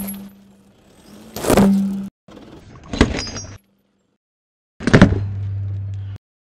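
Small ceramic cups cracking and crunching under a car tyre: a run of sharp crunches roughly every one and a half seconds, each followed by a low steady hum and cut off suddenly.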